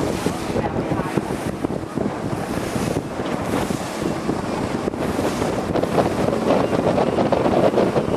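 Wind buffeting the microphone and water rushing past a speedboat under way, as a dense steady noise that grows louder near the end.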